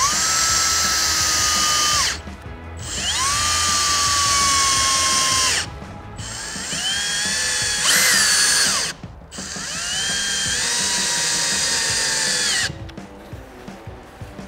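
Cordless drill/driver driving stainless-steel screws through aluminium cladding clips: four runs of a few seconds each with short pauses between, the motor's whine sagging slightly in pitch as each screw pulls in, with a brief higher rev in the third run. The drill stops near the end.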